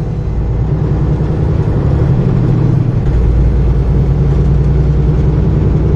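Steady engine and road noise of a moving car, a low drone heard from inside the cabin.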